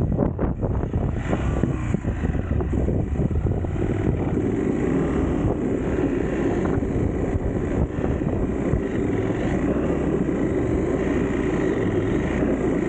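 Motorcycle riding along a loose gravel track, its engine running steadily under wind rushing over the microphone, with a few knocks from the rough surface in the first couple of seconds.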